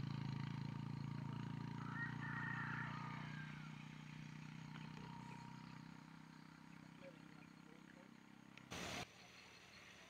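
A motor vehicle's engine running with a steady low hum, growing gradually fainter over several seconds, followed by a short burst of hiss near the end.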